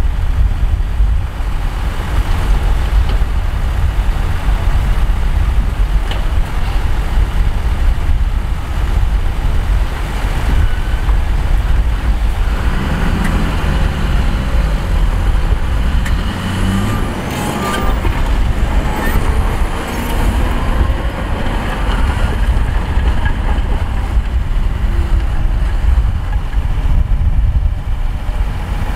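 Heavy diesel earth-moving machinery running steadily with a deep engine sound. From about twelve to twenty seconds in, squealing and whining sounds of shifting pitch come and go over it.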